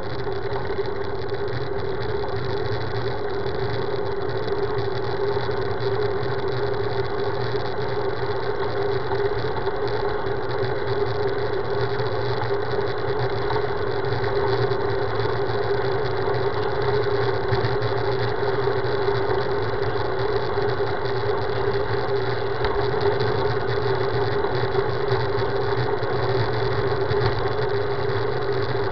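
Steady rush of wind and road vibration picked up by a camera mounted on a moving road bike, with a constant hum underneath.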